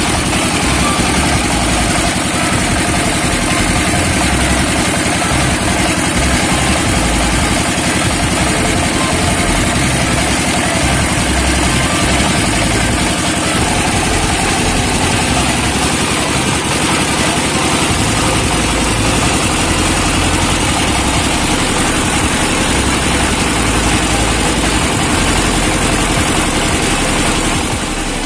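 Shallow-pump diesel engine running steadily under load, driving a mustard oil screw expeller. It is loud and unbroken.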